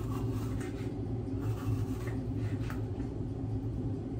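Kitchen knife slicing a green bell pepper into rings on a wooden cutting board, a few soft cuts at uneven intervals, over a steady low hum.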